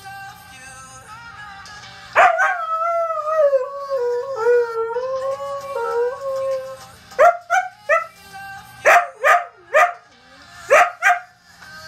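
A husky howling along to a song playing in the background: one long howl starting about two seconds in, sliding down in pitch and held for about four seconds, then a run of short howling yips in small groups.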